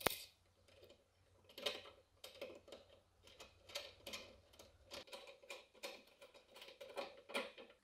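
Small metal clicks and clinks of a hex nut and washers on a bolt as they are handled and the nut is spun down the thread by hand, about a dozen irregular clicks, the sharpest right at the start.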